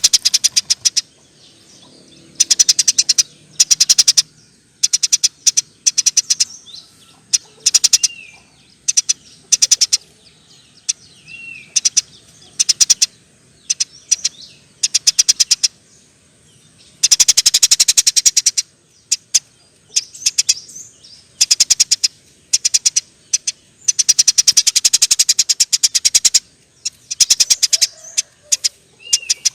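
Eurasian tree sparrow giving its long, rapid chattering rattle ("nyerecet") in repeated bursts of one to three seconds, with a few short down-slurred chirps between bursts.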